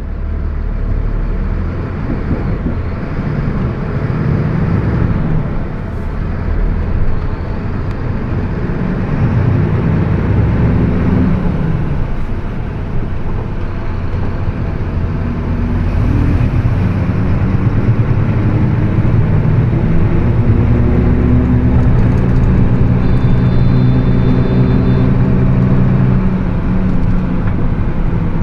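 Mercedes-Benz OF 1724 BlueTec 5 bus running under way, its pitch climbing and dropping back several times as it pulls through the gears. The differential drones loudly over the engine.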